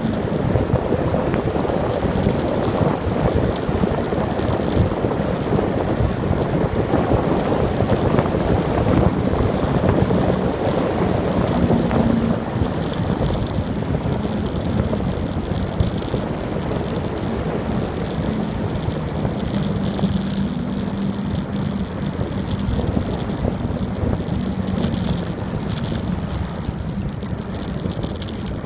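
Steady rush of wind on the microphone and road noise from a bicycle rolling along an asphalt road.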